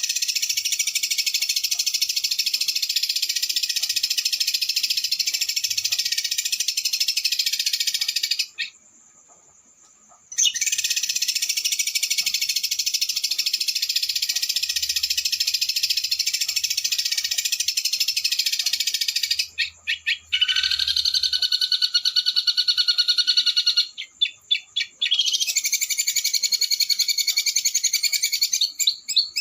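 Small songbird singing long, very rapid, harsh rolling trills, each run lasting about eight to nine seconds with short pauses between; about twenty seconds in the song changes, with a lower steady note under the trill, then breaks into short choppy phrases before a last long trill.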